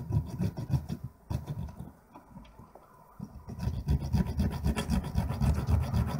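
Round needle file being worked back and forth across the tip of a pair of anti-static tweezers, cutting a small pin-gripping groove. Quick rasping strokes, easing off for about a second and a half near the middle, then picking up again more strongly.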